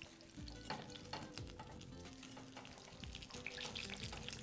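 Breaded chicken cordon bleu frying in a pan, crackling and sizzling in the hot fat while not yet cooked through, with light clicks of metal tongs against the pan.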